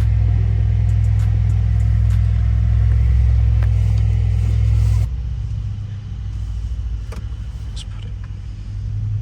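Engine of a Stage 2 tuned Mercedes C63 running under way with a steady, loud low drone, which drops abruptly about five seconds in to a quieter, uneven rumble.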